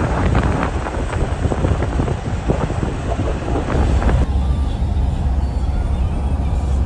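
Coach bus riding along the highway, heard from inside: a steady low rumble of engine and road. For the first four seconds a dense crackling rattle lies over it, which stops abruptly, leaving the plain steady drone.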